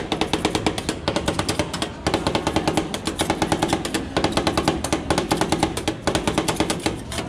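Two metal spatulas rapidly chopping and tapping on the steel cold plate of a rolled ice cream stand, a fast run of sharp clicks, over background music.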